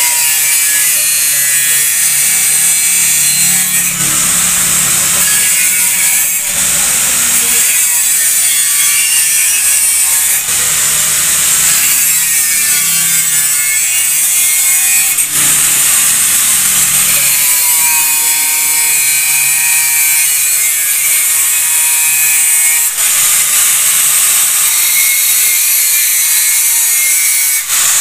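Handheld electric angle grinder grinding metal, a loud steady hiss with the motor's whine wavering as the disc bites, easing off briefly a few times.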